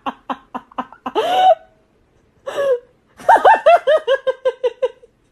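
Orange cat making rapid, rhythmic, laugh-like cries while being stroked: a quick run of short pulses, a longer rising meow just after a second in, a short call, then another fast run of calls near the end.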